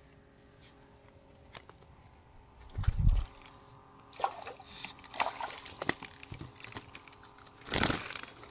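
Water sloshing and splashing with knocks against a wooden boat as a hooked fish is brought aboard: a heavy thump about three seconds in, scattered knocks, and a loud splash near the end.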